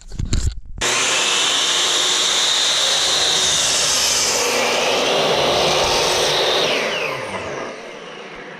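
Electric power saw starting up and crosscutting a wooden board, running steadily for about six seconds, then winding down with a falling whine near the end.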